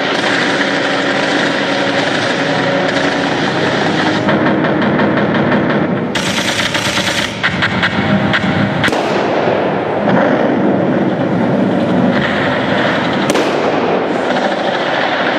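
Simulated machine-gun fire during a radio-controlled scale-tank battle: rapid rattling in long bursts over a steady rumble, with one sharp bang near the end.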